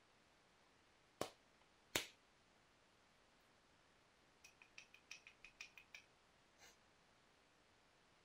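Two sharp knapping strikes on a piece of Rainy Buttes stone, a little under a second apart, the second louder, followed a couple of seconds later by a quick run of about a dozen light, high ticks and one last soft click.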